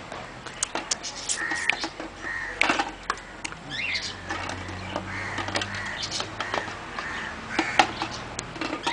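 Crows cawing several times, with sharp clicks and knocks in between.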